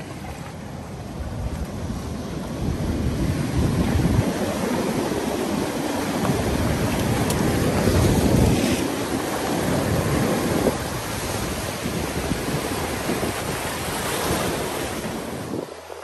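Sea surf breaking and washing over a rocky shore, the rush swelling louder with each breaking wave, with wind buffeting the microphone.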